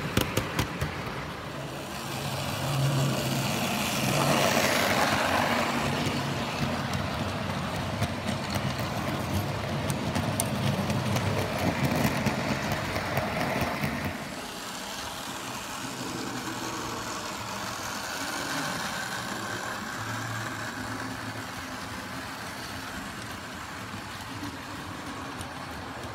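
OO-gauge model freight trains running on a layout: wagon wheels rattling over the track with a low motor hum, and rapid clicking over the rail joints at the start. The sound swells early on, then drops suddenly about halfway through to a quieter, steadier running sound.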